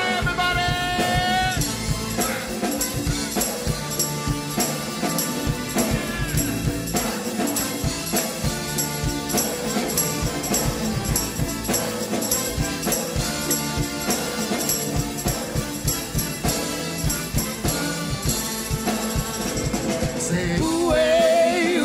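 Live band music from a large group with horn section, guitars, keyboards, drum kit and congas playing a steady groove. A held sung note trails off at the start, the band plays on without vocals, and singing comes back near the end.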